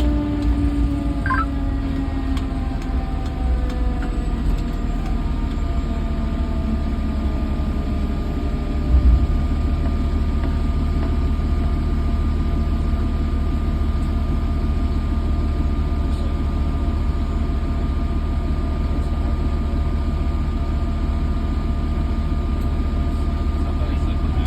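Fire truck on the move, heard from inside the cab: a steady low engine and road rumble with a steady whine over it. A few tones fall in pitch in the first few seconds, and there is a short thump about nine seconds in.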